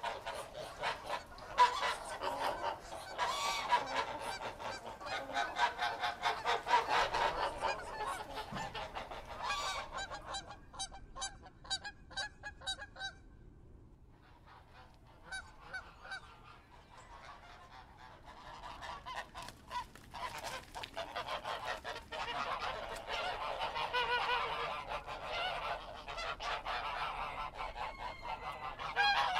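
A flock of geese honking, many calls overlapping at first. A little over a third of the way in it thins to a few separate runs of rapid honks, falls nearly quiet for a moment, then builds back to a dense chorus.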